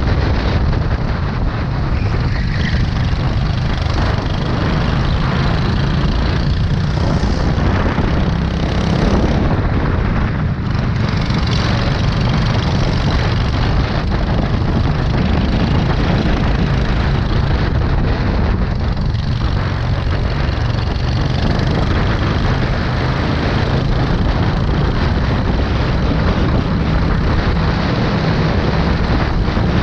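Go-kart engine running hard, heard from onboard at racing speed, with engine sound from the karts close by. The sound stays loud and steady, dipping briefly a few times.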